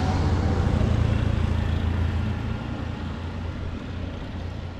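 A low rumble of wind on the microphone, mixed with the road noise of a car that has just passed, fading away steadily over the second half.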